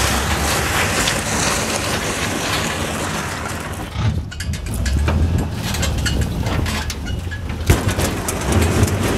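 Small boat hull being dragged on a chain over a gravel road, a steady scraping and grinding with scattered clicks of stones, over a truck's engine running low. A sharp knock near the end.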